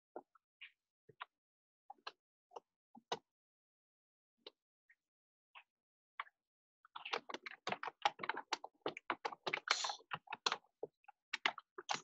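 Typing on a computer keyboard: a few scattered keystrokes, then a fast run of typing from about seven seconds in.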